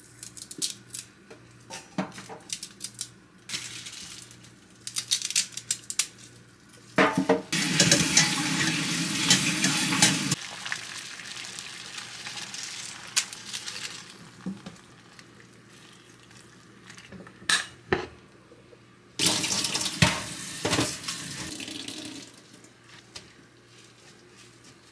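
Kitchen tap running twice for about three seconds each time, between light clinks and knocks of dishes and utensils at the sink, over a faint steady low hum.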